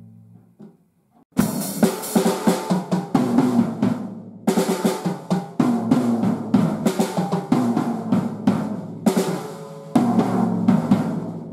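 Sonor Martini compact drum kit (14-inch bass drum, 8-inch tom, 13-inch floor tom, 12-inch snare, poplar shells) played in a busy run of fast hits after a short silence, with two brief breaks, ending on a final hit about ten seconds in that rings out.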